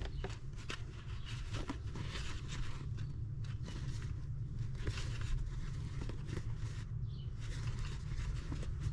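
Soft, irregular rustling and scraping of a crochet hook and cotton yarn being worked through tight stitches and handled, over a low steady hum.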